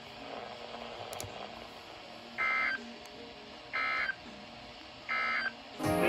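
NOAA weather alert radio beeping: three short, identical high beeps about a second and a half apart.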